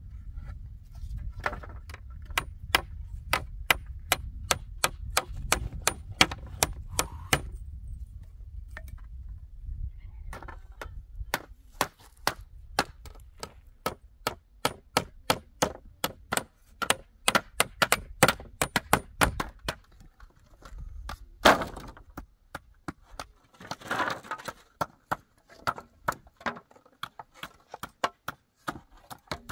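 Wood being struck again and again, two or three sharp strikes a second, in runs with short pauses, over a low rumble that fades out about twenty seconds in.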